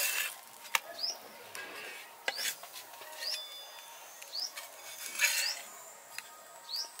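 Short rasping, rubbing sounds of a hand pressing and turning cheese parathas on a hot iron tawa, with a few sharp clicks. A bird repeats a short rising chirp about once a second.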